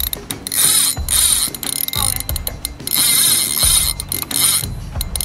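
The drag of a Shimano Spheros 8000 spinning reel ratchets in spurts of about a second, with short pauses between them, as a hooked Mekong giant catfish runs and strips line off the spool.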